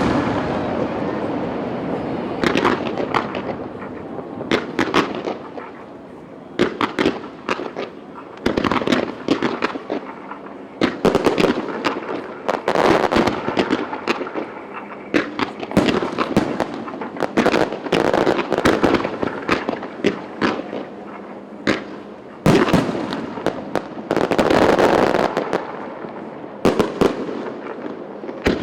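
Aerial fireworks display: many shell bursts in quick succession, sharp bangs echoing off the surroundings, with stretches of dense crackling about halfway through and again near the end.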